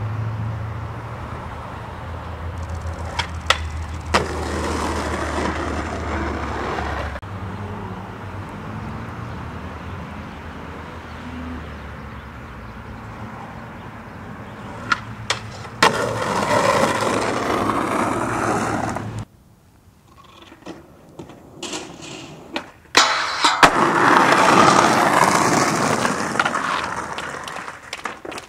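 Skateboard runs at handrail spots: three times, sharp clacks of the board are each followed by a few seconds of loud rolling and scraping of the wheels and deck.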